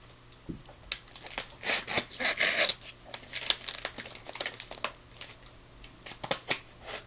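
A utility knife cutting open a cardboard shipping box: irregular scratchy slicing strokes and clicks on the cardboard, with some crinkling. The longest, loudest strokes come about two seconds in.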